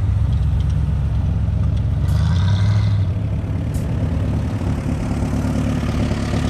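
An off-road 4x4's engine idling with a steady low rumble, swelling briefly about two seconds in, with a couple of light clicks.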